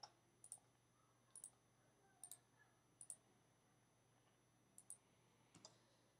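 Faint computer mouse clicks, about seven spread unevenly over a few seconds, most heard as a quick double tick of button press and release, over near-silent room tone.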